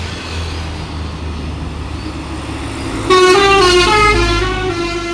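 A bus engine running low. About three seconds in, the bus's telolet musical horn sounds a quick tune of changing notes for about two seconds.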